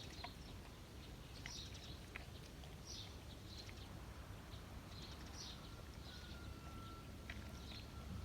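Pit bull eating: faint, scattered chewing and crunching clicks over a low steady hum, with a thin steady whistle-like tone for about two seconds near the end.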